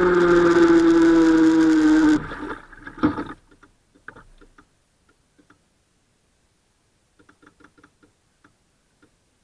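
Twin brushless electric motors of an RC model speedboat whining under a rush of water, the pitch slowly falling, then cutting off sharply about two seconds in as the throttle is released. A single knock follows about a second later, then near silence with a few faint ticks as the boat coasts.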